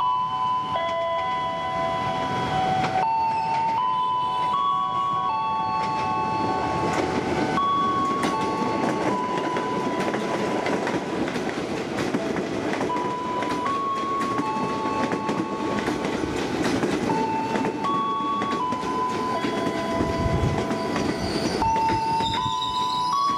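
A 12-car JR 205-series electric commuter train running past at speed: a steady rumble of wheels on rail with some clatter over the joints. A slow melody of held notes plays over it throughout.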